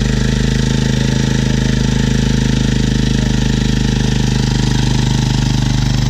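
ATV engine running loudly at a steady idle, with an even, unchanging note.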